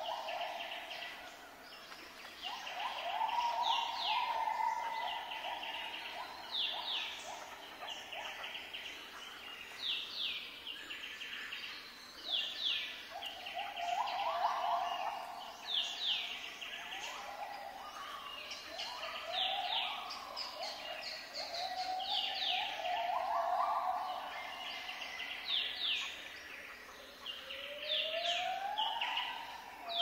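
Zebra finches calling with repeated short, falling chirps, the courtship calls of a caged pair. Under them, a lower drawn-out tone comes and goes several times, rising in pitch near the end.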